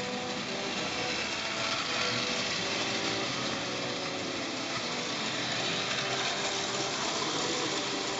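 Lionel tinplate toy train running: a steady electric-motor whir with the wheels rattling along tinplate track.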